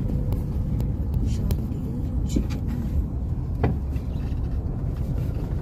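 Steady low rumble of a moving car's engine and tyres heard from inside the cabin, with a few light clicks and rattles over it, the clearest about three and a half seconds in.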